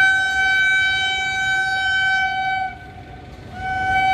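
Locomotive horn of an approaching goods train: one long steady blast that breaks off about two and a half seconds in, then a second long blast starting near the end.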